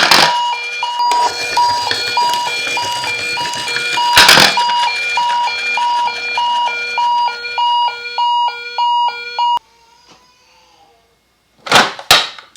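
A toy ambulance's electronic siren sound, a rapid repeating beep with stepping higher tones, cutting off suddenly near the end. Two loud knocks come at the start and about four seconds in, and a few sharp clacks come right at the end.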